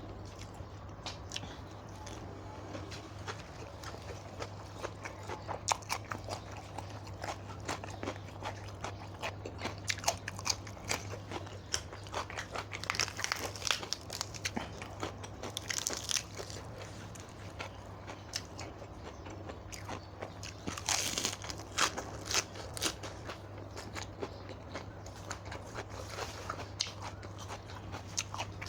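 A person eating close to the microphone: repeated crunchy bites and chewing of spicy Thai papaya salad (som tam) with fresh vegetables, over a steady low hum.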